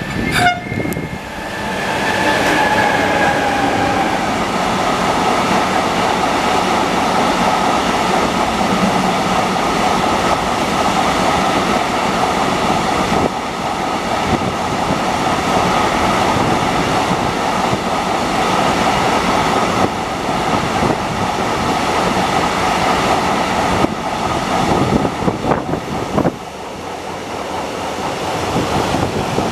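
A freight train passing close by. The locomotive goes past first, its whine falling in pitch as it passes. Then a long string of enclosed wagons rolls by with a steady roar of wheels on rail and occasional knocks.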